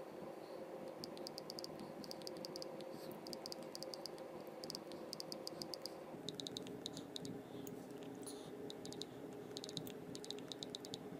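Smartphone on-screen keyboard clicking as a text message is typed: quick runs of short, high ticks, one per key press, with brief pauses between words. A faint steady hum lies underneath and drops in pitch about six seconds in.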